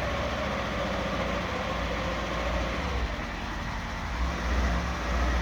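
Polaris Ranger XP 1000 UTV running, a steady engine rumble with a strong low end that rises and falls a little.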